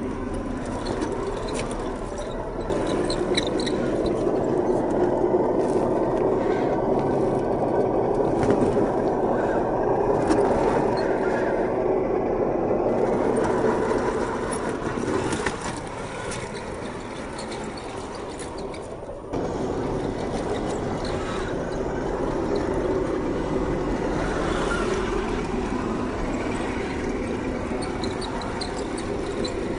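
HG P802 8x8 RC truck's 550 brushed electric motor and geared drivetrain whining as it crawls over rock and dirt, the level stepping up suddenly about three seconds in and again near the twenty-second mark.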